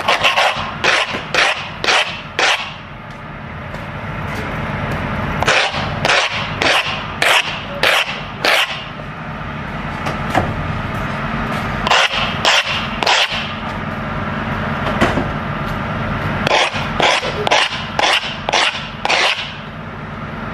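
The sole of a new track spike, with its spike pins and plate, being scraped hard against brick paving to rough it up and break it in. It comes in four bursts of quick scratchy strokes, each burst a few seconds long, with pauses between them.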